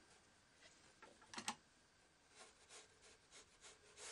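A single sharp tap about a second and a half in, then faint, quick strokes of a paintbrush on watercolour paper, a few a second, as wet paint is softened.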